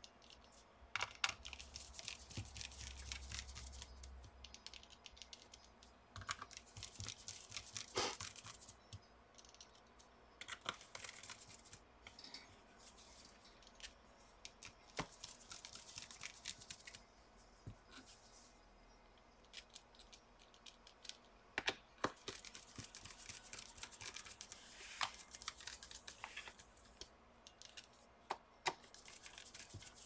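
Small screwdriver driving the bottom-cover screws back into a laptop, with faint, irregular clicks and scrapes of the bit on the screws and of gloved hands handling the cover.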